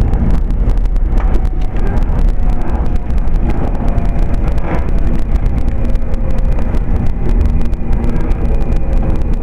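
Shinkansen train running slowly into a station, heard from inside the car: a heavy, steady low rumble of the running gear, with faint whining tones that slowly drop in pitch as the train decelerates.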